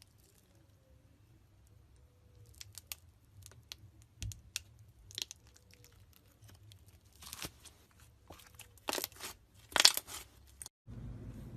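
Slime being worked by hand, giving irregular crackles and sharp pops that grow denser and louder toward the end, the loudest just before the end. It cuts off suddenly into a steady low hum.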